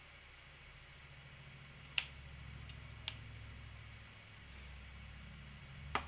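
Three short, sharp clicks, about two, three and six seconds in, over a faint low rumble of someone moving close to the microphone.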